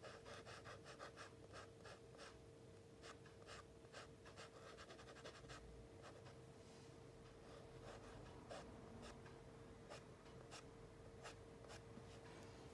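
Charcoal stick scratching over drawing paper in many short, quick strokes, faint, with a steady low hum underneath.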